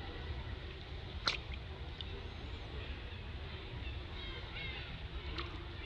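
Outdoor ambience with a steady low rumble, a sharp click about a second in and a weaker one near the end, and a few faint high chirps between them.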